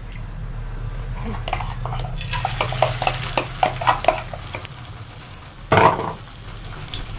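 Crushed instant noodles mixed with egg are spooned and tipped into hot oil in a nonstick frying pan, with spoon clicks against the bowl and a crackling sizzle as the batter hits the oil. There is one short knock about six seconds in.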